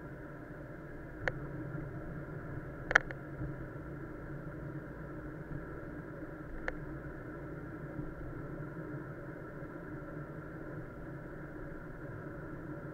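A car running, with a steady low rumble and hiss. Three sharp clicks or knocks cut through it, the loudest about three seconds in.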